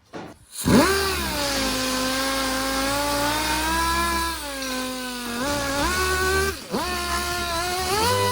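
Dual-action (DA) sander knocking down fresh body filler: the motor whines up sharply, its pitch sagging and recovering as it is pressed against the panel, then it stops briefly about two-thirds through and spins up again.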